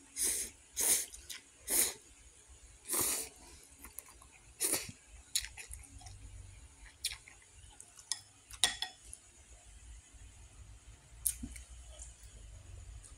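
A person eating spicy instant noodles: five short hissing sounds in the first five seconds, then quieter chewing with scattered small clicks.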